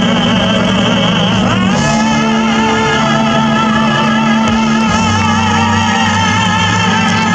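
A man and a woman singing a duet live through microphones and a PA, holding long notes with vibrato over instrumental backing with steady bass notes.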